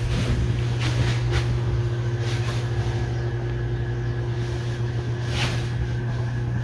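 Ventisol Fênix ceiling fan running: a steady electric motor hum with the air noise of the blades, and a few brief whooshes of air.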